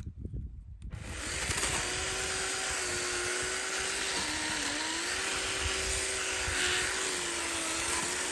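Hart electric chainsaw starting up about a second in and running steadily as it cuts through a cedar branch, its motor pitch dipping briefly about halfway through as the chain bites into the wood.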